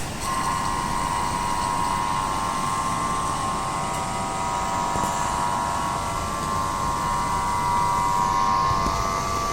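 Flame-proof air conditioner running steadily: an even rush of air with a constant high whine.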